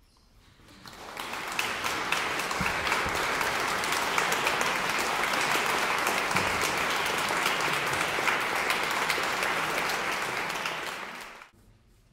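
Concert audience applauding, building up over the first second or so, then a steady dense clapping that stops abruptly near the end.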